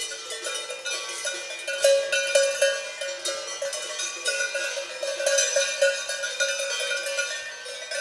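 Several Swiss alpine cowbells clanking irregularly, their strokes overlapping so the ringing never dies away, with many bells of different pitches sounding together.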